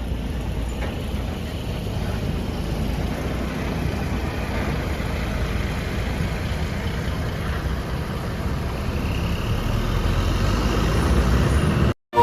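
Steady low rumble of a large road vehicle's engine running amid roadside traffic, growing a little louder in the last few seconds, with a faint rising whine about nine seconds in. The sound cuts off abruptly just before the end.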